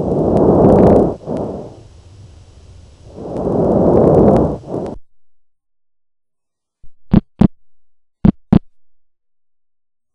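Stethoscope recording of breath sounds: two breaths, each a swelling rush of air. After a pause come two heartbeats, each a paired lub-dub, about a second apart.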